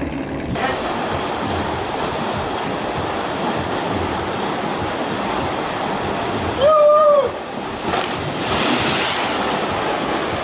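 Water slide and pool water rushing and splashing in a steady wash. A short loud shout rings out about two-thirds of the way through, followed by a bigger splash as a rider hits the pool.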